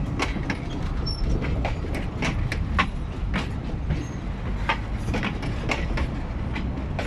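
Passenger coaches of a tourist train rolling past: a steady low rumble with irregular clicks and clacks of the wheels over the rail joints.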